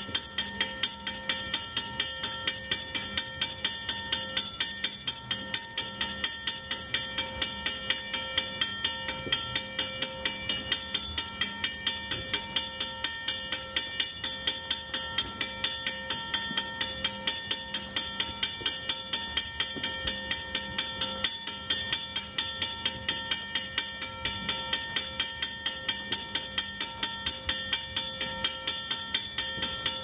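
Railroad crossing bell ringing steadily, struck about three times a second.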